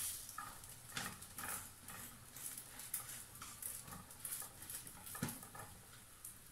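Spatula scraping and tapping in a frying pan while eggs cook, a string of light, irregular clicks and scrapes.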